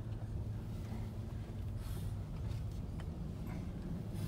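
Steady low hum of a car running at a crawl, heard from inside the cabin, with a faint click about three seconds in.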